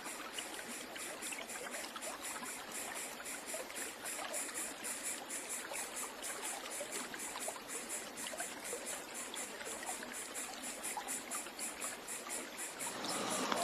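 Steady, even rush of flowing water, like a small stream.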